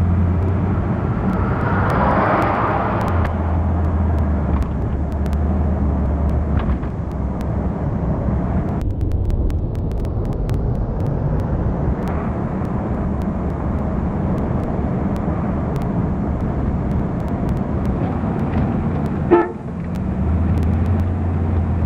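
Road traffic heard from inside a moving car: steady engine and tyre noise with a low hum that comes and goes. A louder rush comes about two seconds in, and a single sharp click sounds near the end.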